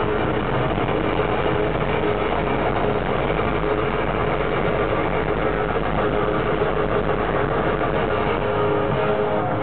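Hard rock band playing live at full volume, heard through an overloaded camera microphone: distorted electric guitar, bass and drums blurred into one dense, unbroken wall of sound, with the crowd mixed in.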